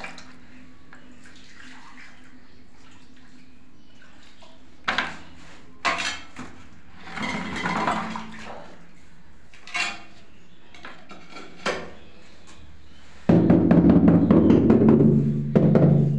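Ceramic floor tiles being handled and knocked into place on mortar: a few sharp knocks and a short stretch of scraping and clinking between about five and twelve seconds in. Near the end, loud music with a drum beat starts.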